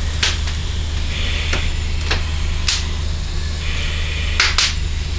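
Fire crackling, with sharp cracks every second or so, a double crack near the end, over a steady low hum. Two short hisses come in between.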